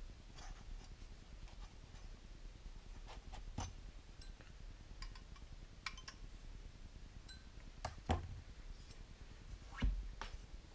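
Scattered small clicks and clinks of small metal parts and tools being handled while an RC crawler chassis is assembled, with two louder knocks, about eight and ten seconds in.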